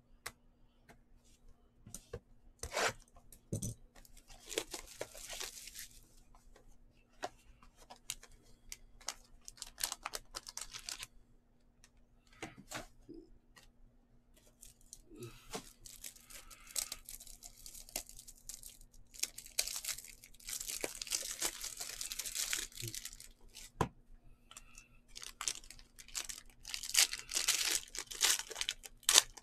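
Foil trading-card pack wrapper crinkling and being torn open, in several stretches of crackling with sharp clicks and taps in between.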